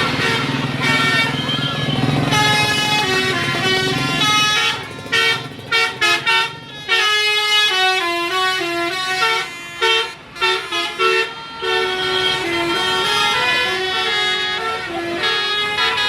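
Multi-tone 'telolet' musical bus horn playing a tune, its notes stepping up and down. Around the middle the notes come as a run of short, quick blasts before the tune goes on steadily.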